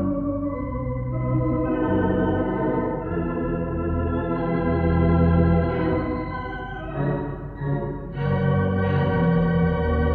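Hilsdon theatre pipe organ playing sustained chords over bass notes, the harmony changing every second or two, with a brief thinning of the sound near seven seconds before a fuller chord comes in.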